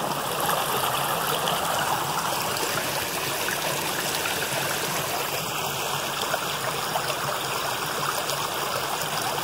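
Shallow woodland creek flowing steadily over branches and fallen leaves, a constant rush of running water.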